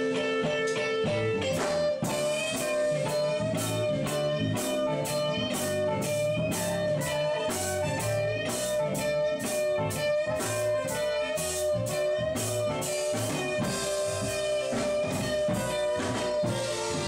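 Blues band playing live: electric guitar over a drum kit keeping a steady beat of about two hits a second, with a long held, slightly wavering note.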